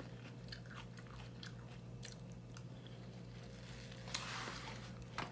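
A person chewing a mouthful of soft sweet potato close to the microphone: quiet, scattered wet mouth clicks, with a brief hiss about four seconds in.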